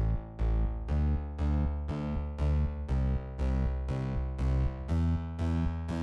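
Background music: evenly spaced notes, about two a second, each dying away, over a deep bass.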